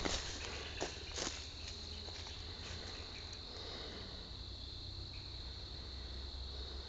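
A steady high-pitched chorus of insects such as crickets, with a few sharp clicks in the first second or so.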